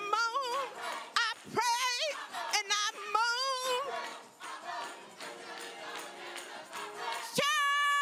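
Gospel choir singing, with wavering sung phrases for the first few seconds, a quieter stretch in the middle, and a long held note beginning near the end.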